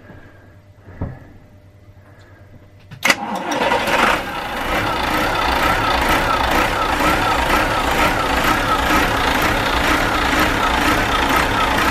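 Inboard marine diesel engine started from cold: a sharp click about three seconds in, then it catches within a second and settles into steady running.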